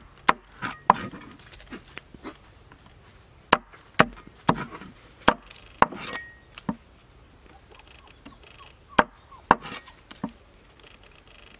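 Cleaver chopping on a wooden cutting board: single sharp knocks at an irregular pace, about a dozen strokes, some close together and some with pauses of a second or more between them.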